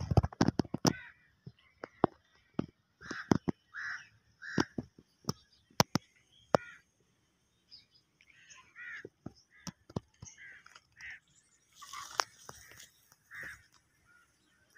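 Crows cawing repeatedly in short calls, over many sharp clicks that come thickest in the first second or so.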